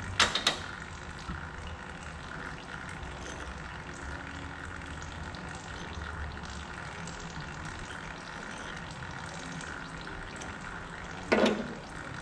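Short sharp metallic clicks from hand tools working on the engine while a spark plug is taken out: a few just after the start and a louder cluster near the end, over a steady hiss.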